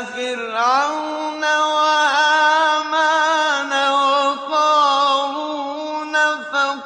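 A man's voice reciting the Quran in slow, melodic tajweed style, holding long ornamented notes that waver in pitch, with brief breaks between phrases.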